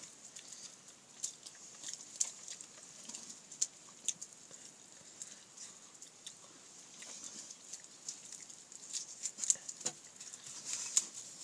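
A dog eating rabbit meat from a hand, chewing and licking with soft irregular clicks and smacks that come thicker near the end.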